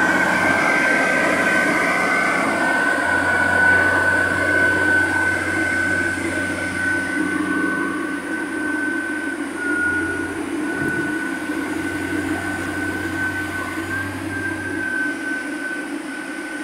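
Rotary drilling rig's engine running steadily close by, with a steady high whine over the engine noise, slowly getting a little quieter.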